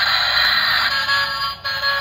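A black toy car's small built-in speaker playing a tinny electronic sound: a harsh hiss for about the first second, then an electronic tune of steady held notes.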